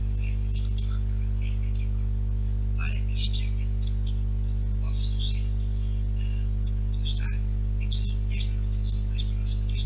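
A steady low electrical hum, with brief high-pitched squeaks or chirps breaking in a few times.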